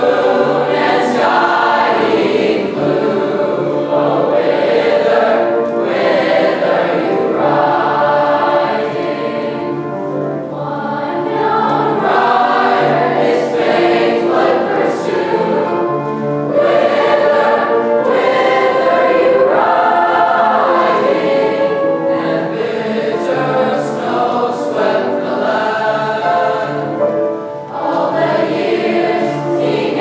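Mixed school choir of young teenage boys and girls singing a choral piece in parts, phrase after phrase, with brief dips between phrases.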